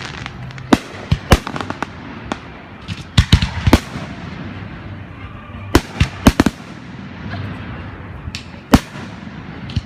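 Aerial fireworks bursting: a string of sharp bangs in irregular clusters, each with a short echo, the loudest single bang near the end.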